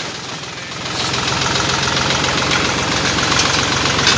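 Tractor's diesel engine running steadily, a little quieter for the first second before settling to an even level.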